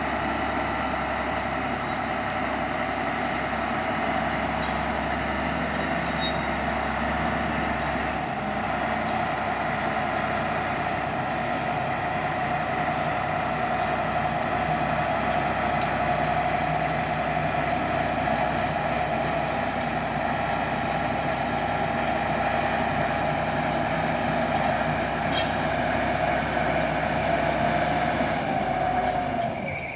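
A 14-ton bulldozer's diesel engine running steadily under work, with a constant high whine over its drone.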